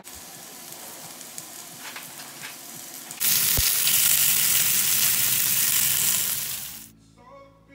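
Mushrooms, garlic cloves, broccoli and red pepper sizzling in a hot frying pan: a steady hiss, moderate at first, much louder from about three seconds in, with a single low knock, then dying away near the end.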